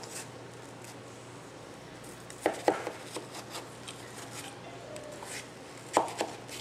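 A knife and a round plastic cutter knocking against a wooden cutting board while cutting watermelon shapes: two sharp knocks about two and a half seconds in and a few more near the end, over a faint steady low hum.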